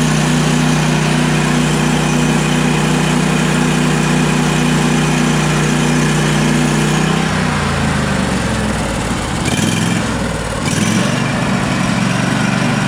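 Sawmill engine running steadily, then dropping in pitch about seven seconds in and running lower and unevenly.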